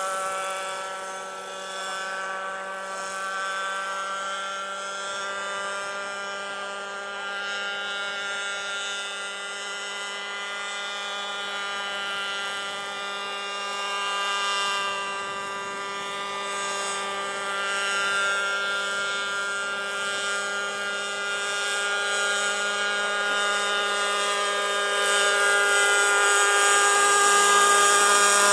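Combustion engine and rotors of a scale RC Sikorsky HO3S-1G model helicopter in flight, a steady high-pitched engine whine with rotor noise. It grows louder over the last few seconds as the helicopter comes closer.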